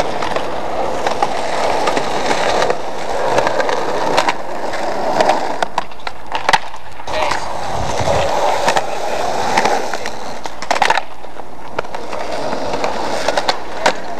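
Skateboard wheels rolling over rough asphalt: a steady gritty rolling noise broken by scattered sharp clacks of the board. The rolling drops away briefly about six seconds in.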